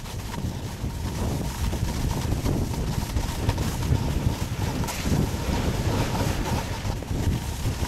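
Wind buffeting the camera's microphone: a low, fluctuating rumble with gusts and no speech.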